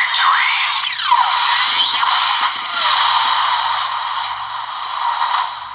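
DX Desire Driver toy belt with the Boost Mark IX Raise Buckle playing its Dynamite Boost Time finisher sound effects through its small speaker: sweeping electronic whooshes and glides over music, with no bass, fading near the end.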